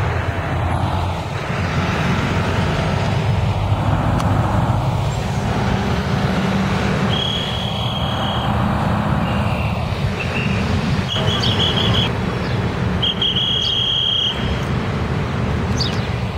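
City buses and street traffic: bus engines running and pulling past in a steady rumble that swells as vehicles go by. From about halfway through, a few short high whistling tones come and go.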